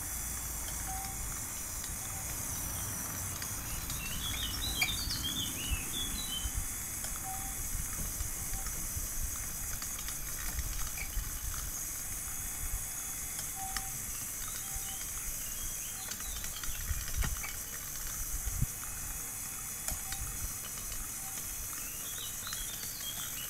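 Outdoor ambience: a steady high hiss with birds chirping in short bursts, about four seconds in and again near the end, and a few soft clicks.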